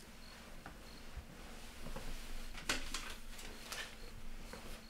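Quiet room tone with a low steady hum and faint movement sounds: soft rustling and a few light clicks, most of them in the second half.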